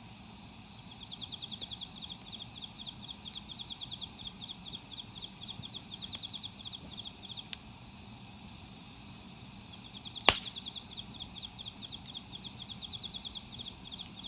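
A high, fast trill of even pulses, about ten a second, in two long runs. A single sharp crack about ten seconds in is the loudest sound.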